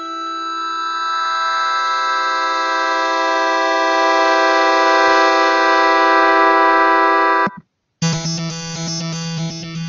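Oki Computer 2 synthesizer ensemble in Reaktor auditioning presets. A sustained retro chord ('Envesque Morpher') swells up over about four seconds, holds steady and cuts off suddenly about seven and a half seconds in. After a brief silence the '5 Dirty Steps' preset starts a fast, stepping old-video-game-style pattern over a steady low note.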